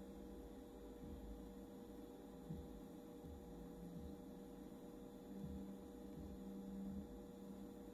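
Faint steady electrical hum from a solar inverter. A thin tone sits above a lower hum that swells a few times.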